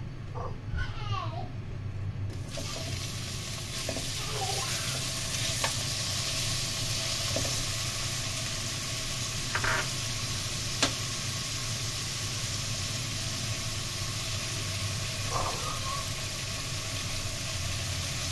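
Sliced onions frying in hot oil in a wok: a sizzle starts suddenly about two seconds in as the onions go into the oil, then carries on steadily with a few light clicks.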